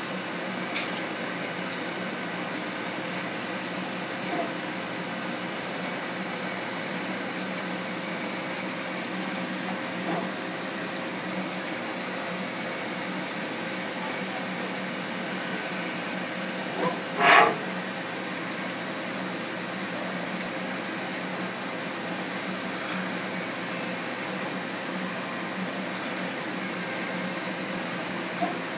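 Hurco BMC 20 CNC machining centre milling metal with an end mill under flood coolant: steady cutting and spindle noise with coolant splashing, and a steady hum. One short, louder noise comes a little past halfway.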